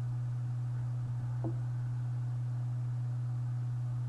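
Steady low hum, one unchanging pitch with a fainter overtone, and a faint brief sound about a second and a half in.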